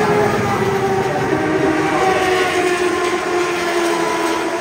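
Honda CBR race motorcycle engine running at high revs as it passes down the straight, a loud steady drone whose pitch falls gradually as it goes by.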